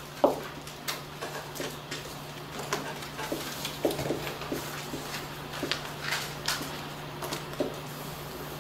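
Marker writing on a whiteboard: a run of short, irregular strokes and taps as the letters are written, over a steady low hum.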